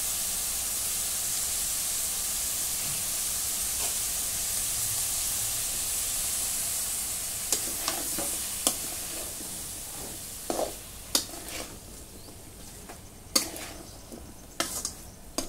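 Raw jackfruit and potato pieces sizzling in a kadai of fried spice paste, a steady hiss for the first half. From about halfway a steel spoon stirs them, clicking and scraping against the pan, while the sizzle fades.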